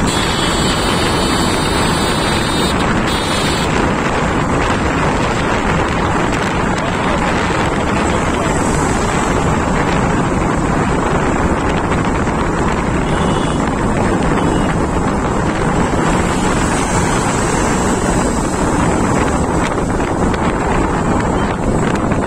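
Wind rushing over the microphone of a motorcycle riding at speed, a loud steady roar with the bike's engine and road noise underneath.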